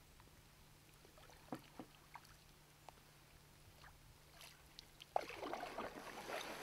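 Canoe paddling on calm water: faint drips and light knocks, then a louder swish of water from about five seconds in.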